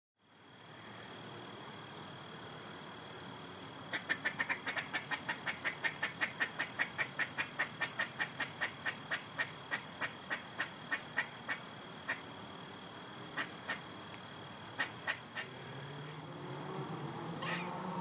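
An insect chirping in a steady series, about three sharp chirps a second, slowing and growing irregular before stopping, over a faint steady high drone. Music fades in near the end.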